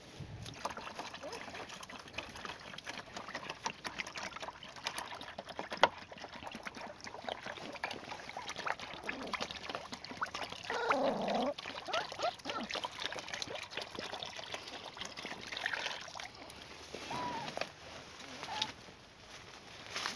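Milk poured from a plastic bottle into a shallow plastic tray, loudest about halfway through, while puppies lap at the tray and shuffle through dry leaves and twigs with many small clicks and rustles.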